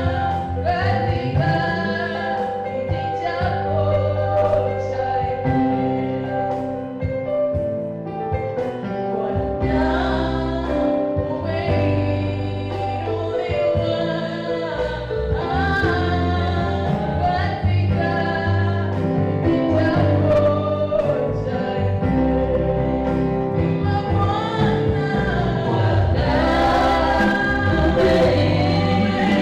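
Gospel music with a choir singing over a steady bass and beat.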